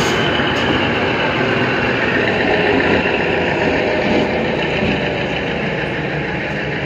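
The last car of a departing MEMU local train passing close by, with a steady, heavy running noise of machinery and wheels on rail. A couple of short clicks come right at the start, and the noise slowly fades toward the end as the car moves away.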